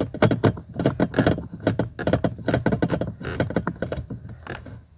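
A screwdriver driving a small mounting screw home through the blower motor power stage into its plastic housing: a quick, uneven run of clicks and scrapes, several a second, that stops just before the end.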